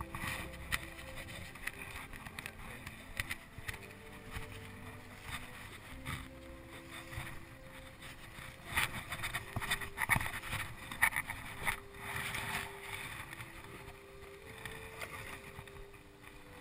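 Small boat under way on a pond: water splashing and slapping against the hull, with irregular knocks that cluster about halfway through, over a faint steady hum.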